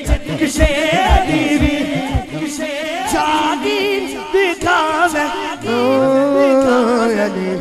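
A boy's voice singing a Punjabi manqabat (a devotional song in praise of Ali) into a microphone: a long, ornamented, unaccompanied passage of held notes with heavy vibrato. A lower held note joins about two thirds of the way through.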